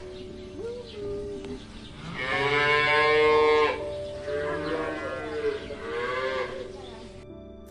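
Cow mooing: one long, loud moo about two seconds in, followed by two shorter, quieter moos.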